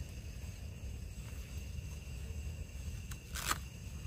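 Steady high drone of insects in the woods, with a brief scratchy rip of gear being handled about three and a half seconds in.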